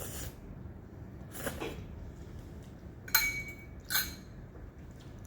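Tableware at a meal: a soft scrape, then two sharp ringing clinks of a utensil against a dish, a little under a second apart.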